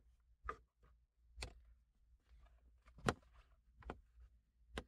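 A hand tool clicking and tapping against the plastic trim of a car's center console as it is worked at to pry a part loose: about five short, faint, sharp clicks at uneven spacing, the loudest about three seconds in.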